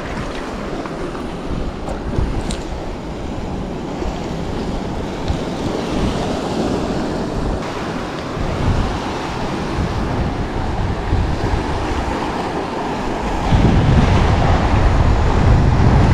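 Surf washing against the shore under a steady rush of wind on the microphone, the low buffeting growing heavier near the end.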